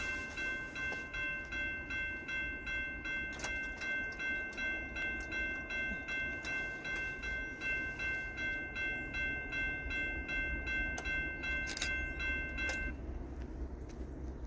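Railroad grade-crossing warning bell ringing about twice a second, cutting off near the end, over a low rumble.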